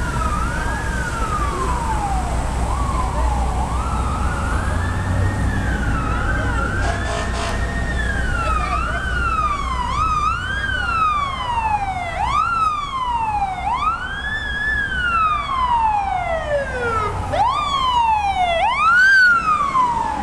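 Fire truck sirens wailing, the pitch rising quickly and then falling over and over, about every one and a half to two seconds. A second siren overlaps from about eight seconds in, and a steady low traffic rumble runs underneath.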